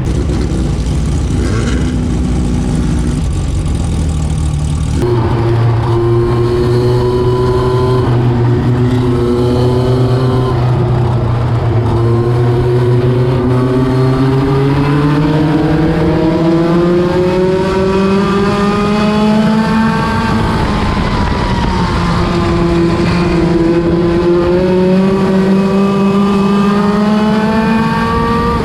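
Midget race car engines running at speed on the track, the engine note climbing slowly and dropping back every several seconds as the cars work around the oval.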